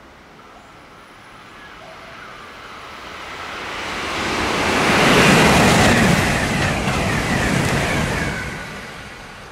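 923 series Doctor Yellow Shinkansen inspection train passing at speed: its running noise builds for several seconds, peaks about halfway through, then fades toward the end.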